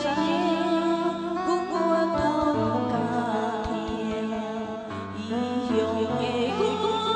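Song with a singer holding wavering notes over sustained instrumental accompaniment.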